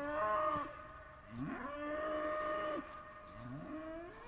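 A cow mooing repeatedly: three long moos, each sliding up in pitch at the start and then held steady. The first runs into the start, the second comes about a second and a half in, and the third begins near the end.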